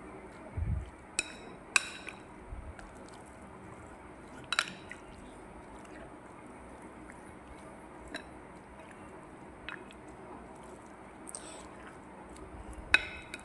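A plastic spoon stirring raw chicken wings through a wet blended lemongrass spice paste in a glass bowl: soft squelching, with a few sharp clinks of the spoon against the glass and a dull thump under a second in.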